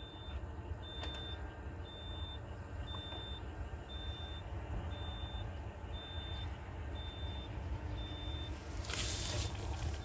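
An electronic reversing alarm beeping steadily, one high-pitched beep about once a second, over the low running of an engine. A short burst of rustling noise comes near the end.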